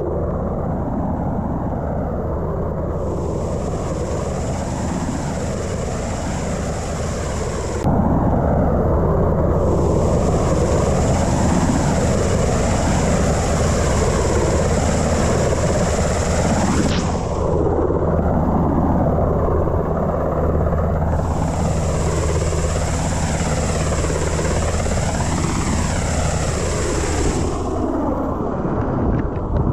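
UH-60 Black Hawk helicopter hovering overhead, a steady heavy rotor drone with a high turbine whine that fades in and out several times. It gets louder about eight seconds in.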